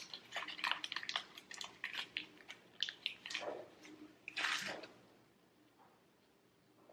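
Paper muffin liner crinkling and crackling as it is peeled off a baked muffin, many small quick crackles, then two short sniffs about three and a half seconds in.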